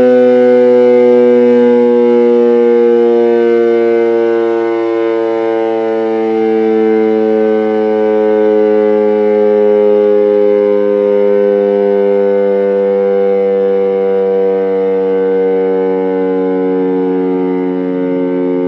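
Electric motor siren sounding the 6 p.m. signal: one loud, continuous wail whose pitch slides slowly downward.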